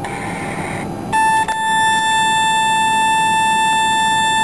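Steady single-pitched tone just under 1 kHz from the Boeing 727's HF radio, starting about a second in with a brief break just after: the tuning tone that sounds while the antenna tuning unit (ATU) tunes the aerial to the selected frequency.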